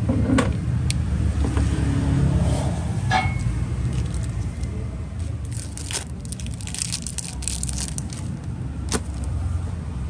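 Steady low rumble of traffic, with a Zippo lighter handled over it: a few sharp metallic clicks, one of them ringing briefly, and a run of small clinks and scrapes about halfway through.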